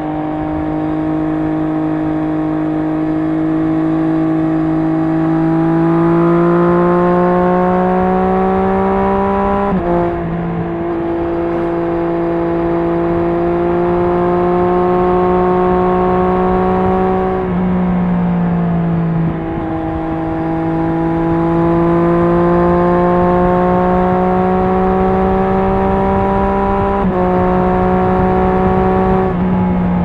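Triumph Street Triple S three-cylinder engine through an SC Project SC1-R slip-on exhaust with its dB-killer fitted, pulling along at moderate throttle. The pitch climbs slowly and drops sharply at gear changes about a third of the way in, a little past halfway and near the end. Wind and road noise run underneath.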